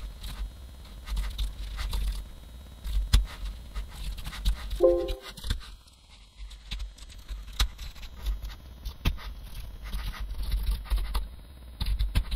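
Computer keyboard typing: irregular key clicks with low thumps on the desk, and a brief pitched squeak about five seconds in.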